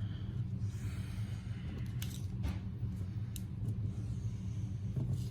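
Trading cards and card piles being slid and shifted on a table, giving a few short rustles and clicks, over a steady low hum.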